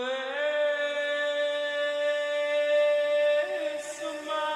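Background vocal music: long, steadily held humming notes that step to a new pitch a few times.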